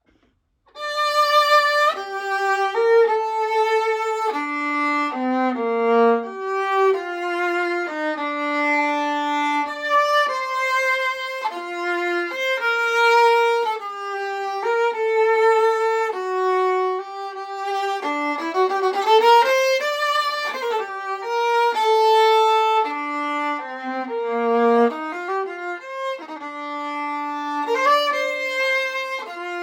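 Old German full-size 15.5-inch viola bowed solo, playing a melody of sustained notes, one at a time. It starts about a second in after a moment of silence.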